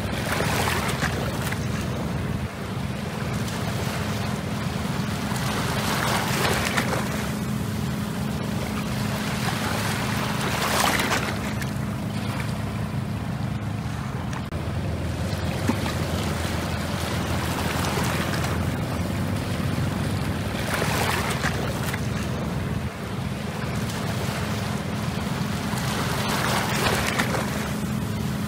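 Inboard diesel engine of a wooden fishing trawler running steadily, a low even hum, with water washing against the bank in swells every five seconds or so.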